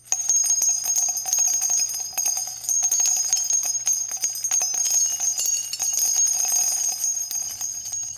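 Bells jingling: a steady, high, bright ringing laid over many quick small metallic strikes, fading just before the end.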